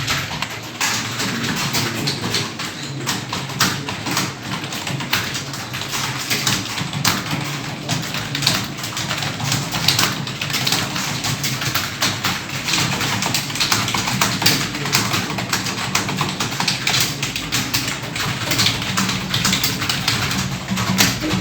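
Fast, continuous typing on a computer keyboard: irregular key clicks several a second, without pause.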